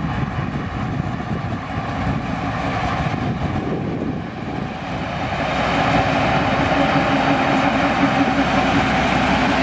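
TU7A narrow-gauge diesel locomotive's V12 diesel engine running as it hauls a passenger coach, with a steady drone that grows louder about halfway through as the locomotive draws close.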